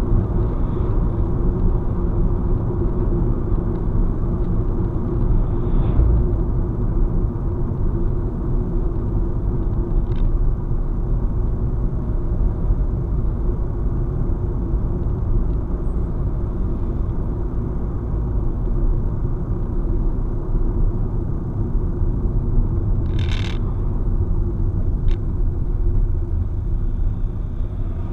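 Steady drone of a car's engine and tyres on the road, heard from inside the moving car through a dashcam's microphone. A short, sharper noise cuts in once about 23 seconds in.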